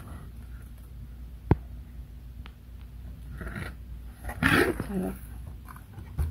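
A cardboard takeout chicken box being handled close to the microphone, with a sharp tap about a second and a half in. A louder burst of rustling comes a little past the middle, mixed with a short vocal sound.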